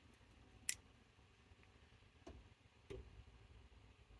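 Near silence with a sharp click about a second in and two faint knocks later: the heater blower switch being tried while the new heater fan stays silent, its main connector not plugged in.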